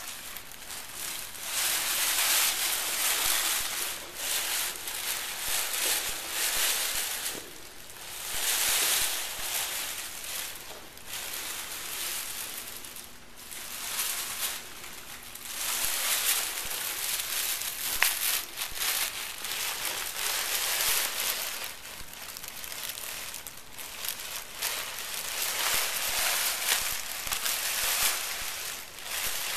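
Thin plastic shopping bags crinkling and rustling as a kitten burrows and wriggles inside them, in irregular spells with short quieter gaps between.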